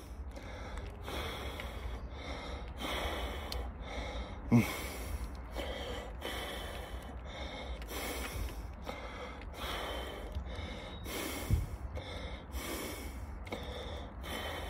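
A man breathing heavily and out of breath, with rapid, noisy in-and-out breaths about once a second. Two short voiced grunts come through, about four and a half seconds in and again near eleven and a half seconds. He is winded from exertion and in back pain.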